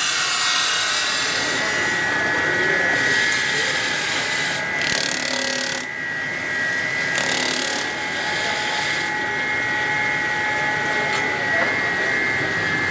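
Motor-driven buffing wheel running with a steady whine, with stretches of rushing hiss as a steel knife blade is pressed against the spinning wheel for polishing.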